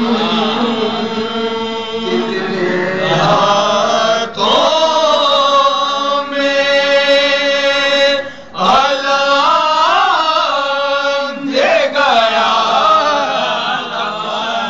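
A group of men chanting a soz, a Shia mourning elegy, together without instruments, in long drawn-out notes. The phrases are broken by short pauses for breath.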